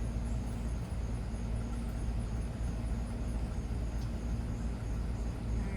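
Steady low background rumble, with a faint thin high tone running through it.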